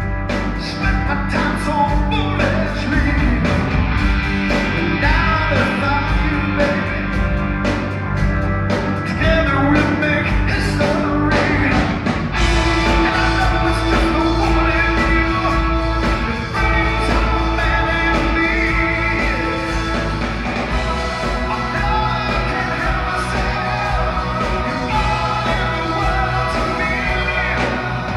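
A live rock band playing, with a lead vocal over drums and amplified instruments. About twelve seconds in, the drum hits thin out and a long held note carries on under the singing.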